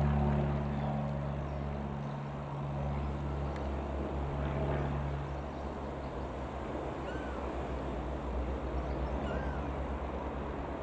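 Piper PA-28-180 Cherokee light aircraft's single four-cylinder piston engine and propeller droning as it flies past. The steady low hum weakens after about five seconds into a fainter, pulsing drone. Two short faint chirps come near the end.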